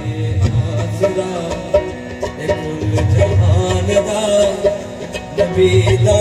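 Qawwali music: a harmonium playing a melody, with a man singing and a steady beat of percussion strokes.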